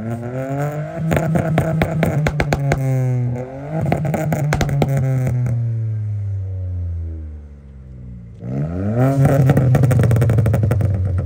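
Tuned Volkswagen Polo hatchback being revved while parked, three times: the engine climbs, holds at high revs with rapid crackling from the exhaust, and falls back. The second rev dies away slowly before the last one.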